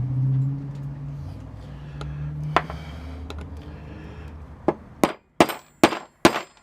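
Hammer striking a metal punch to drive a friction-fit pin out of a metal band saw's blade guide: a run of sharp metallic clangs, about two and a half blows a second, starting near the end after a single tap.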